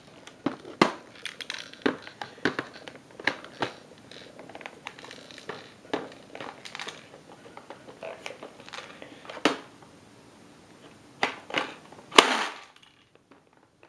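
Irregular plastic clicks and knocks as a drum magazine is handled and fitted into an airsoft M1928 Thompson replica, with a louder short clatter near the end.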